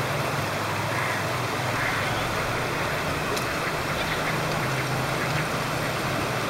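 Steady outdoor noise of flowing river water and traffic hum, with a few faint duck quacks.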